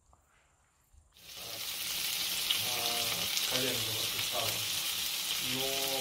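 Patties frying in hot oil in a pan: a steady sizzle that fades in about a second in and then holds.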